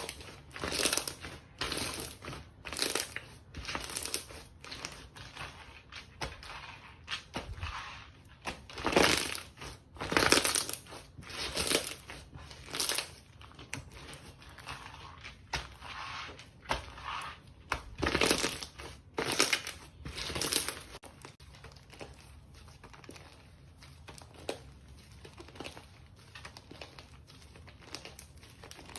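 Slime being pressed and squeezed by hand, making a series of short, irregular squishes and pops, roughly one a second, some much louder than others.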